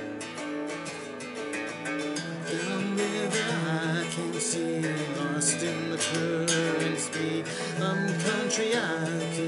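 Epiphone SG electric guitar strummed in chords, an instrumental passage of a folk song, growing louder a few seconds in.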